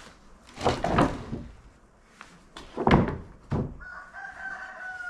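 Several heavy wooden thuds as cut maple slabs and slab pieces are handled and set down, the loudest about three seconds in, followed near the end by a steady high-pitched tone lasting about a second and a half.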